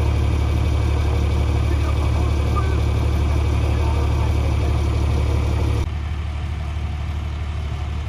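Diesel engine of an articulated wheel loader running steadily, a deep low hum. About six seconds in the sound drops suddenly and carries on quieter.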